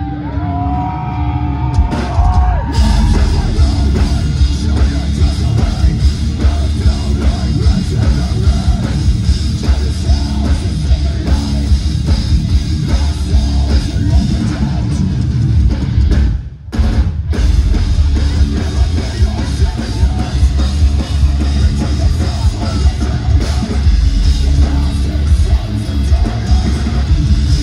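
Heavy metal band playing live. A lone bending guitar line opens it, then the full band crashes in after about two and a half seconds with dense, fast drumming and distorted guitars. The band stops briefly about sixteen seconds in, then comes back.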